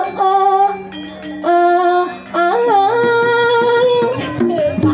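A singer holding long, drawn-out notes of a Balinese song, sliding between pitches at the turns of the phrases, over a low sustained accompaniment.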